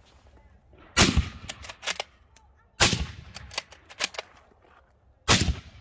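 Three rifle shots from a Christensen Arms Ridgeline Scout bolt-action rifle, each a sharp crack with a short echoing tail, the last near the end. Between shots come quicker, fainter metallic clicks of the bolt being cycled.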